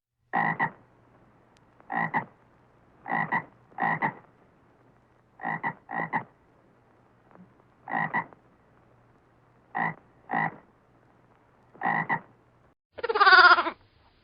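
A frog croaking in short calls, often in quick pairs, about every one to two seconds. Near the end a louder, longer call with a wavering pitch cuts in.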